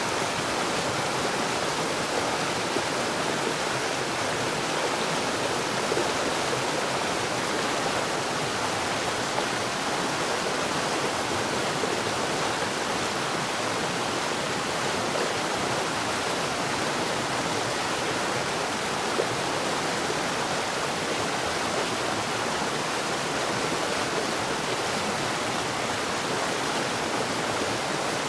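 Steady rainfall: an even, unbroken hiss.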